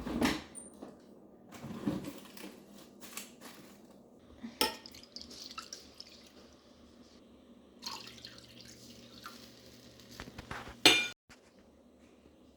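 Kitchen prep for pickled red onion: dishes and utensils knocking and clinking, with dripping and splashing water. A sharp clatter near the end is the loudest sound, and it cuts off suddenly.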